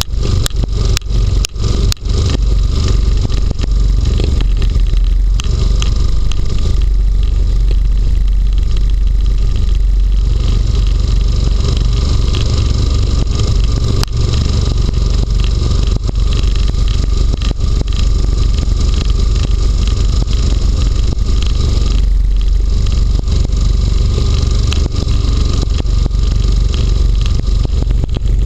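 Inflatable hovercraft running steadily at cruising speed over snow: its engine and fan make a loud steady rush, with the skirt scraping along the snow beside it. There are a few short dropouts in the first two seconds.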